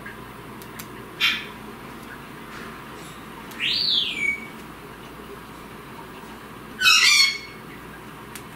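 Goffin's cockatoo calling three times: a short squawk about a second in, a whistle that rises then falls about four seconds in, and a louder harsh squawk near seven seconds.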